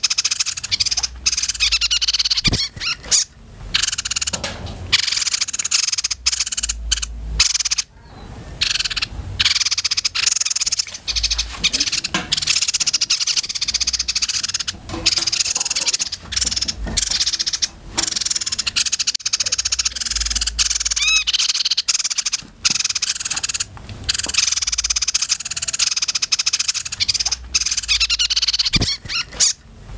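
Several young caged songbirds singing and chattering continuously in rapid, harsh, high-pitched trills.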